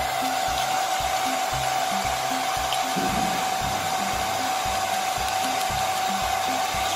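Hand-held hair dryer blowing steadily while drying a dog's wet fur, a constant rush of air with a steady high whine from its motor. Background music with low bass notes runs underneath.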